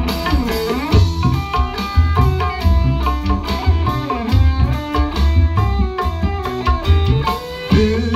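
Small live band playing an instrumental break of a dangdut-style song: a hand drum keeps the beat over a bass line, and an electric guitar plays the melody with sliding notes.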